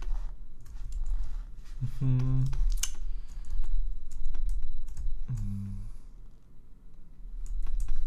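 Irregular taps and clicks of a computer keyboard and mouse as the sculptor works. Two short wordless vocal hums come about two and five seconds in.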